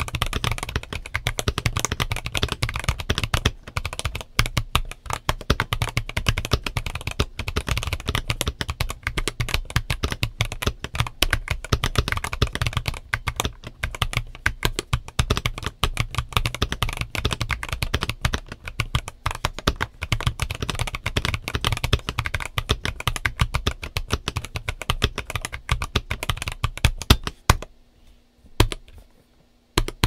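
Fast typing on a stock Skyloong GK980+ gasket-mount keyboard (aluminum top, ABS bottom case, PC plate) fitted with Glacier Rose switches and ABS keycaps: a quick, steady run of key clacks. Near the end, after one louder clack, the typing stops for about two seconds, then starts again.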